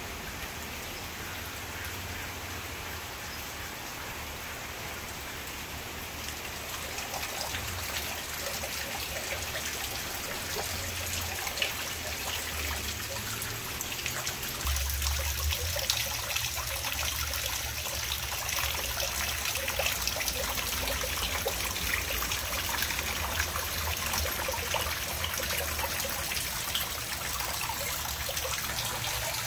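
Water from a lava-rock volcano fountain pouring off a slate ledge in thin streams and splashing into the small pond below: a steady trickling and splashing that grows louder about halfway through.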